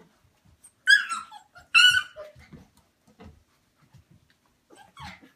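Puppies wrestling in play, giving two loud high-pitched yelps about a second apart early on, then a fainter yelp near the end, with soft scuffling between.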